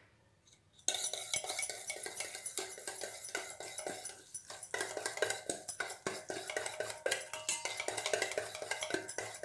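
Wire whisk beating flour into cake batter in a stainless steel bowl: rapid, continuous clinking of the whisk against the bowl, starting about a second in.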